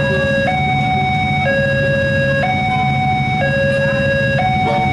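Railway level crossing alarm sounding its two-tone electronic warning, stepping between a lower and a higher tone about once a second, which signals that a train is approaching and the crossing is closed. Near the end a second alarm joins in out of step, over the low rumble of idling motorcycle engines.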